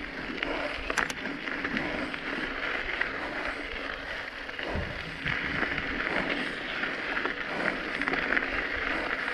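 Bicycle climbing slowly in low gear on a loose gravel dirt road: a steady rolling noise from the tyres on the gravel, with scattered small clicks and rattles.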